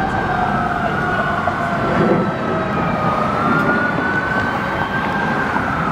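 Fire and rescue apparatus sirens wailing slowly up and down, two sirens overlapping in the first second or so and then one carrying on, over the steady rumble of street traffic and truck engines.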